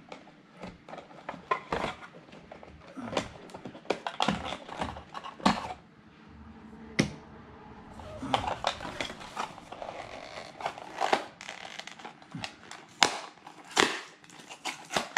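Cardboard and plastic packaging being handled: irregular clicks, taps and crinkles as a box insert is pulled out and emptied, with a few sharper knocks.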